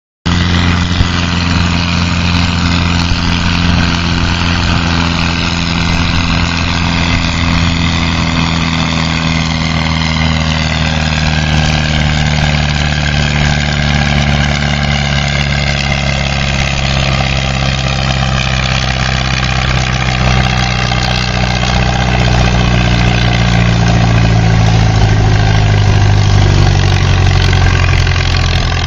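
A Farmall tractor's four-cylinder engine running hard as it pulls a weight-transfer sled. The note holds steady at first, then drops gradually through the second half as the engine lugs down under the sled's load.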